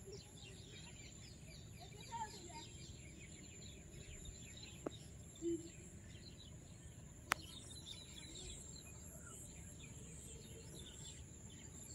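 Faint rural ambience: a steady high insect drone with scattered faint bird chirps, and two sharp clicks about five and seven seconds in.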